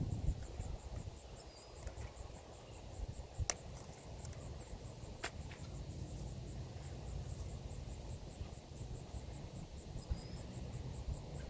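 Outdoor ambience: low wind rumble on the microphone, a faint high pulsing trill, and a few short bird chirps. Two sharp clicks come a little under two seconds apart, about a third of the way in.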